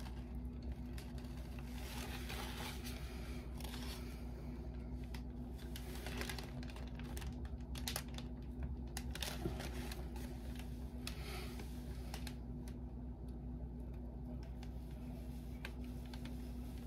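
Steady low hum with a faint steady tone, and scattered faint light clicks and rustles.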